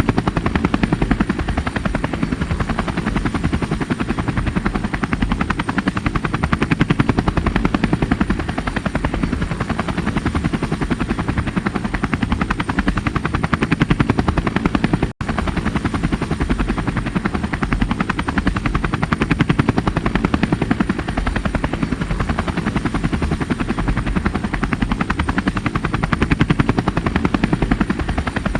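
Helicopter running steadily, its rotor blades making a rapid, even chop over engine noise, with a thin high steady tone above. The sound drops out for an instant about halfway through.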